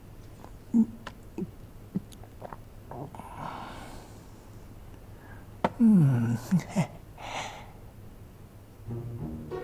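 A man's breathy sighs and exhalations, with a drawn-out groan falling in pitch about six seconds in, among a few small clicks.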